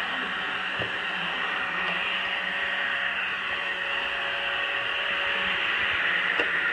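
PureClean robot vacuum running across a hard floor: a steady whir from its suction fan and brushes, with a couple of faint clicks about a second in and near the end.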